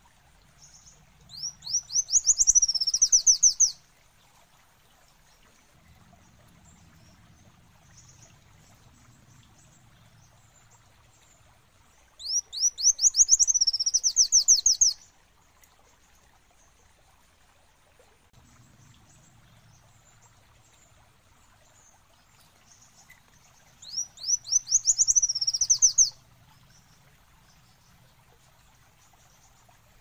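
Kolibri wulung (Van Hasselt's sunbird) singing three short songs, about every eleven seconds. Each song is a quick run of high, rising notes that speeds into a trill, lasting two to three seconds.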